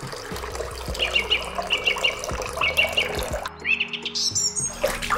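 Birds chirping in short repeated phrases over quiet background music, with a thin trickle of water poured from a small metal pot.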